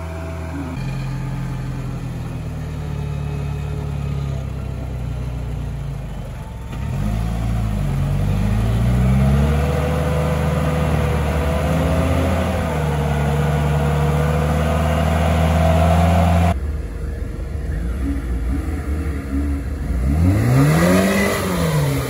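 Off-road car's engine pulling steadily under load, with a few quick revs about eight seconds in. The sound changes abruptly about two-thirds of the way through, and near the end the engine is revved up and back down.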